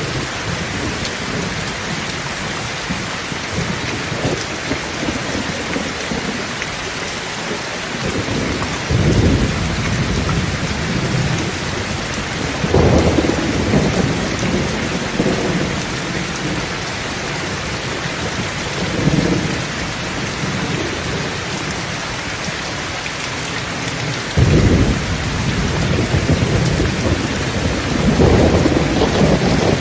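Thunderstorm: steady heavy rain with thunder rolling in and out. Low rumbles of thunder start about eight seconds in and come back several times, the loudest ones a third of the way through, near the last quarter, and in the final seconds.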